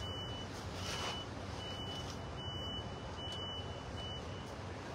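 A vehicle's reversing alarm beeping repeatedly in one high pitch, the beeps stopping near the end, over a steady low background rumble.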